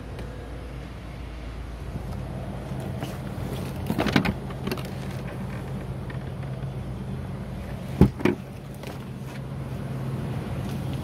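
Steady low hum of a Nissan Armada SUV idling, with a cluster of knocks about four seconds in and two sharp thumps around eight seconds in.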